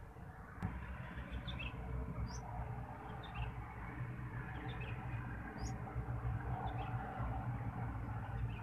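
Small birds giving short, scattered high chirps over a steady low rumble, with one sharp click about half a second in.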